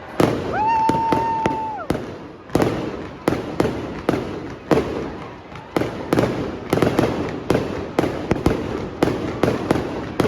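Fireworks going off: a string of sharp bangs and crackles that comes thicker and faster toward the end. About half a second in, a high whistle rises and holds for over a second.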